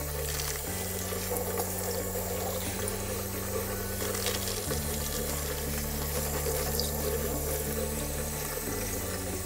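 Kitchen tap running steadily as a sea bass fillet is rinsed under it in the sink.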